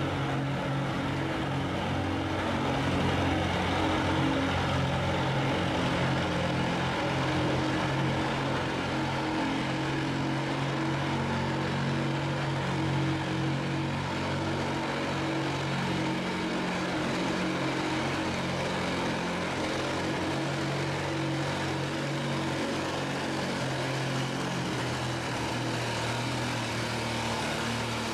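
Farmall tractor's engine running steadily under heavy load as it drags a weight-transfer sled in a tractor pull.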